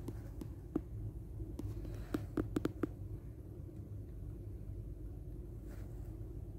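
Low, steady purring rumble from a nursing mother cat close to the microphone, with a few quick clicks between about two and three seconds in.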